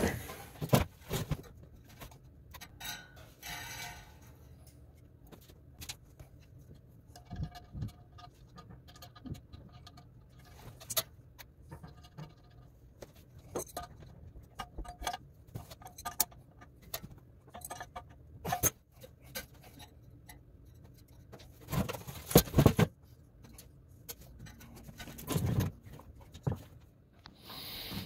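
Scattered metallic clanks, knocks and scrapes of a replacement blower motor and its mounting being handled and slid back into a water source heat pump's blower housing, over a faint steady low hum. The loudest knocks come late.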